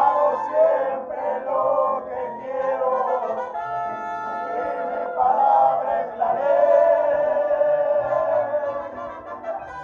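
A live band of violins and accordion playing a song, with voices singing along.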